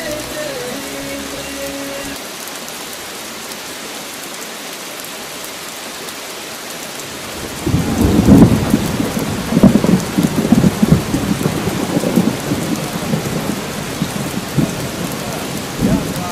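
Steady rain falling, with a roll of thunder breaking in about halfway through and rumbling on in uneven surges to the end.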